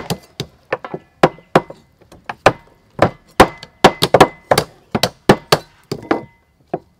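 Meat cleavers chopping whole raw chickens on wooden chopping blocks: sharp, irregular strokes about three or four a second from more than one cleaver at once. Some strokes carry a short metallic ring.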